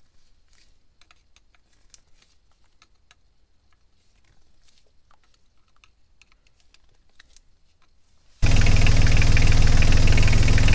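Faint clicks of a screwdriver turning the screws of the raw-water pump cover, then, about eight seconds in, a Yanmar 3YM30 three-cylinder marine diesel cuts in suddenly, running steadily at idle and loud.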